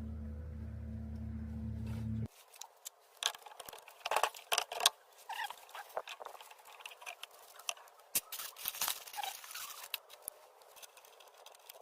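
A steady low hum for about two seconds that cuts off suddenly, then irregular scratching, scraping and small clicks of a wheel hub being cleaned by hand.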